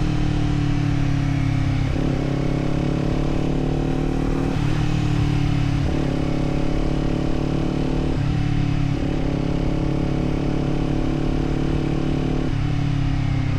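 Kawasaki Z400 parallel-twin engine running under way, heard from the rider's position. Its note changes in steps several times as the throttle opens and closes.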